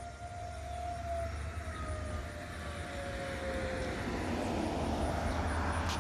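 Federal Signal 2001-130 outdoor warning siren sounding a steady tone in a monthly test, its pitch sagging slightly lower. A rushing noise swells over the second half.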